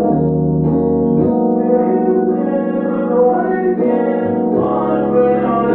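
Music: held chords that change twice, with a melody line moving over them.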